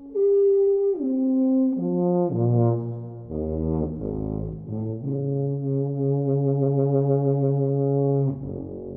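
Tuba playing a descending run of ever-lower notes down into its deepest register, then a long held low note that stops about eight seconds in, leaving the hall's reverberation to die away.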